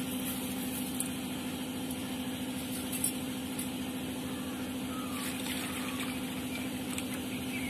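A steady low mechanical hum, like a motor or engine running at idle, with a couple of faint ticks.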